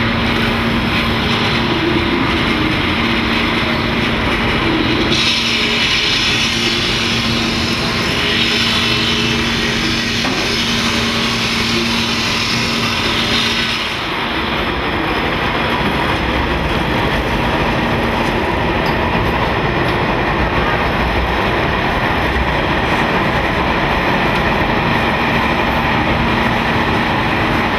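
Steady rumble and hiss of urban traffic with a constant low hum. About halfway through it changes to the steady rumble of a Delhi Metro train running along an elevated viaduct.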